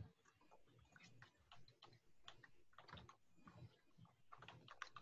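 Faint computer keyboard typing: irregular key clicks as a password is typed in, with one sharper click right at the start.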